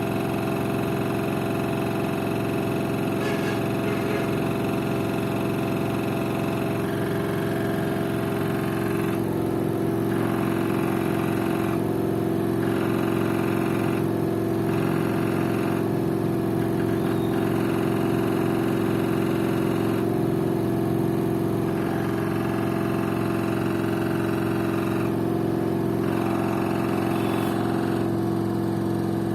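LG FV1450S1B front-loading washing machine on its spin cycle: a steady motor hum with a higher noise that comes and goes every couple of seconds. The owner likens the odd noise to a bolt that is not tight enough.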